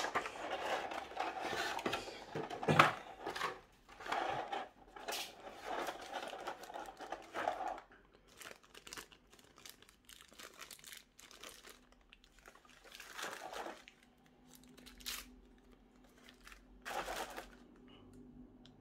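Packaging crinkling and tearing as a boxed action figure is unwrapped by hand, with sharp crackles. It is busiest for the first eight seconds or so, then comes in a few short, scattered rustles.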